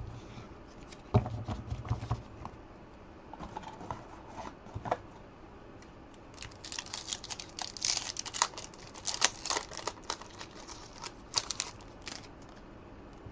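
Trading cards being handled at a table: a knock about a second in, scattered clicks, then several seconds of dense rustling and crinkling in the second half.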